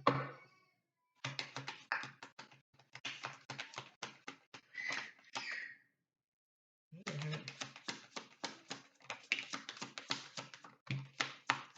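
A deck of divination cards shuffled by hand: a rapid run of papery card clicks, pausing for about a second midway, then going on.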